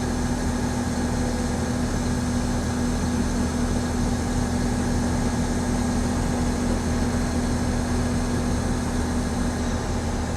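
A crane's heavy diesel engine running steadily at constant speed with an even hum and no change in pitch.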